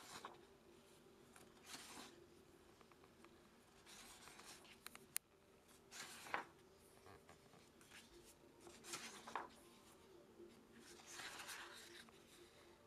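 Sketchbook pages being turned and handled: soft, faint paper swishes and rustles about every two seconds, over a faint steady hum.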